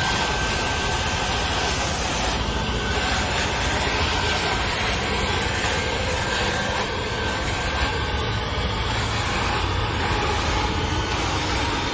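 Scooter-mounted dog-waste vacuum running, a steady loud rushing noise of suction with a faint thin high whine that fades out about two-thirds of the way through.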